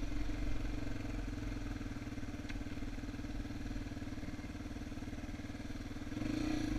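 Yamaha TT-R230's single-cylinder four-stroke engine running steadily at low, even throttle while riding, getting a little louder about six seconds in.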